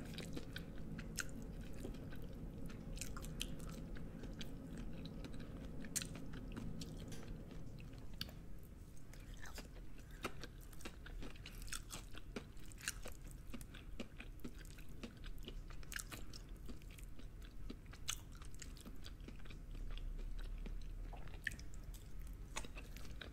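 Close-up mouth sounds of someone chewing soft cheesy noodles topped with crunchy Takis crumbs: quiet, wet chewing with scattered small crunches and clicks throughout.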